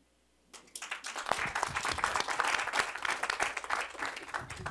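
Audience applauding in a theatre hall, a dense patter of many hands clapping that starts about half a second in after a moment of near silence.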